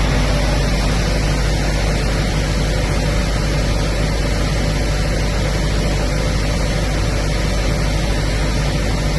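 Diesel engine of a 32 kW standby generator, a Lister Petter, running steadily: a loud, even drone with a low hum underneath and no change in speed.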